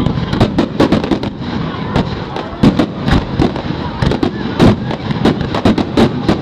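Aerial firework shells bursting in a rapid barrage, several booms a second over a continuous rumble.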